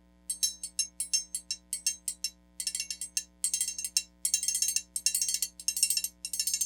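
Metal disc from a motorcycle played as a small, high-pitched triangle: bright ringing metal strikes, first single strokes about four or five a second, then from about two and a half seconds in fast rolls in short bursts.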